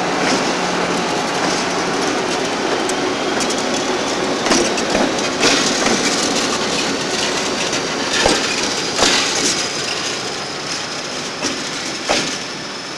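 Diesel locomotive passing close at low speed, its engine running under a steady rumble of wheels on rail, with sharp knocks and clicks of the wheels over rail joints every second or so through the middle.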